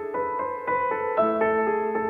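Performance music with a melody of sustained piano-like keyboard notes, a new note every half second or so.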